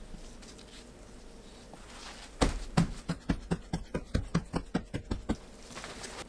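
Gloved hands patting a kitchen paper towel down over semi-dried sand lance to blot them dry: a quick run of soft pats, about five a second, starting a couple of seconds in and stopping about a second before the end.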